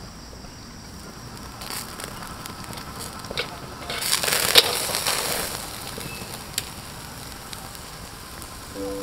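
Wood and charcoal fire crackling under meat grilling in a wire basket, with scattered pops and a louder burst of hissing and crackling about four seconds in.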